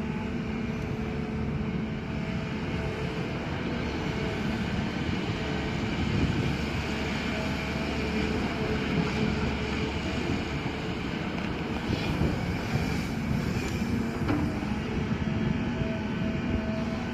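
Excavator's diesel engine running steadily under a constant load, a continuous low drone with a few held tones above it.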